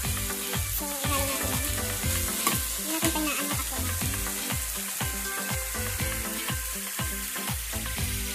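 Shredded vegetable and chicken filling sizzling in a nonstick frying pan while a wooden spatula stirs grated mozzarella into it, with many short scraping and knocking strokes of the spatula against the pan.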